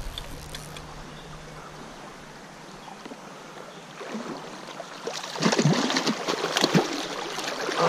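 Stream water flowing steadily, then from about five seconds in, repeated sharp splashes as a hooked rainbow trout thrashes at the surface while it is being netted.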